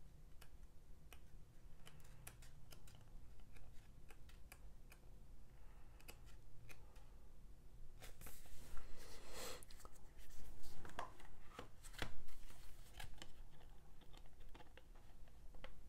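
Pages of a paperback booklet being turned, soft paper rustling with louder swishes about eight to ten seconds in. Near the end, a few sharp clicks as a Blu-ray disc is handled in its plastic case.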